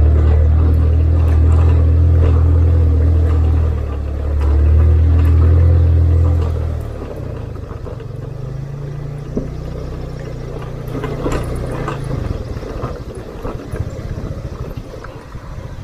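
Motorcycle engine running under way on a rocky track, loud and steady for the first seven seconds with a brief dip, then quieter. Scattered knocks and rattles come from riding over the stones.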